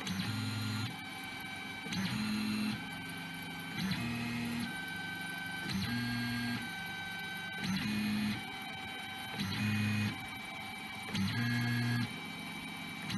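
Delta 3D printer's stepper motors whining in short bursts, seven times about every two seconds, as the print head moves from point to point during automatic bed levelling. A steady hum carries on between the moves.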